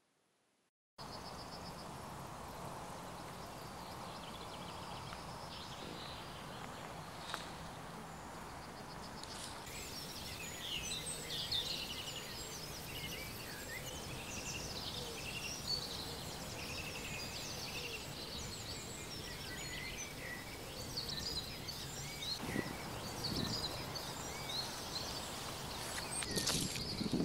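Woodland ambience: a steady, quiet background hiss with many small birds chirping and singing, the birdsong growing busier about ten seconds in.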